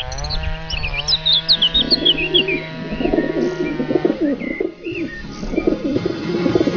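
Birds chirping in quick rising and falling calls, densest in the first couple of seconds, over a steady low hum.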